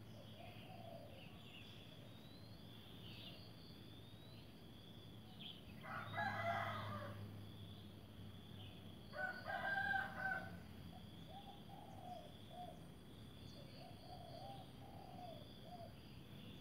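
A rooster crowing twice, about six and nine seconds in, with shorter fainter calls between and after, over faint high bird chirps and a steady thin high-pitched hum.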